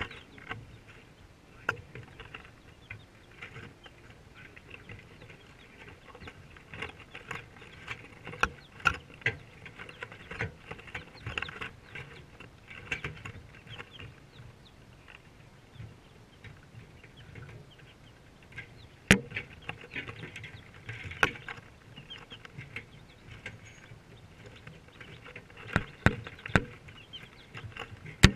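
A brood of five-day-old chicks peeping continually in short high cheeps, with a few sharp taps close to the microphone, the loudest about two-thirds through and near the end.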